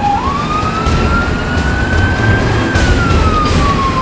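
Emergency vehicle siren on a slow wail, rising for about two and a half seconds and then falling, heard from inside a moving vehicle with engine and road rumble underneath.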